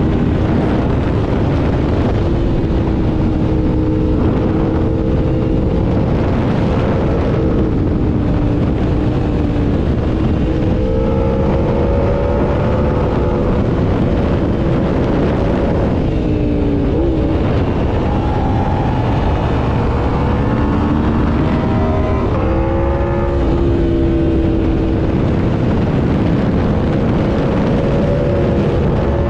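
Aprilia RSV4's V4 engine heard from the rider's seat at speed, its pitch repeatedly rising under throttle and falling off as the bike slows for bends, with a sharp drop about halfway through. A steady rush of wind noise runs underneath.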